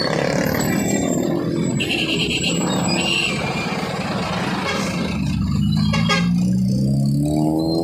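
Motorcycle riding through traffic: the engine running under heavy wind rush on the microphone, with an engine note that climbs in pitch over the last couple of seconds as it accelerates.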